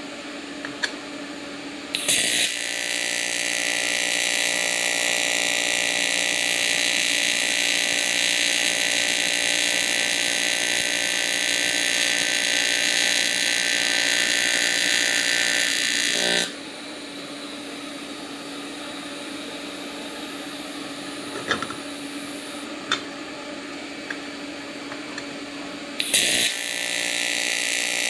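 AC TIG welding arc on 16-gauge aluminum tube at about 65 amps, a steady buzz with a high whine over it. It strikes with a crackle about two seconds in, cuts off suddenly after about fourteen seconds, and strikes again a couple of seconds before the end. Between the two runs the welder hums quietly, with a few light clicks.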